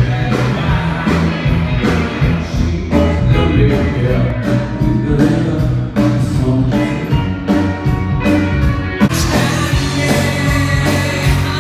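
Live rock band playing: electric guitars and drums with a beat, and a voice singing. The sound grows fuller and brighter about nine seconds in.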